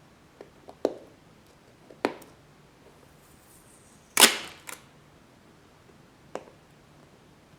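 Headphone box being handled and pried open: several separate taps and knocks, with a sharp snap about four seconds in, the loudest of them.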